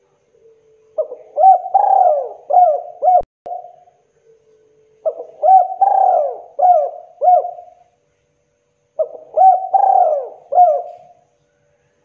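Spotted dove (tekukur) cooing: three phrases of four or five notes each, a couple of seconds apart.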